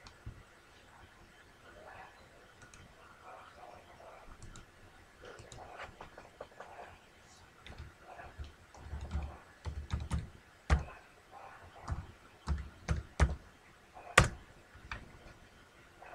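Typing and clicking on a computer keyboard, scattered at first and busier from about halfway, with one sharp louder click near the end.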